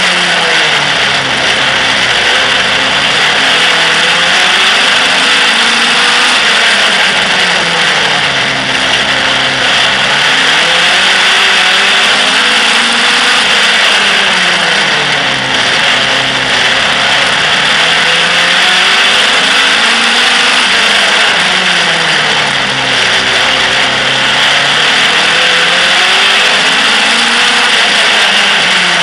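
Outlaw stock car engine racing laps, heard from a camera mounted on the car: the engine pitch climbs and then drops in a repeating cycle about every six seconds, accelerating along each straight and easing off into each bend, over a steady noisy rasp.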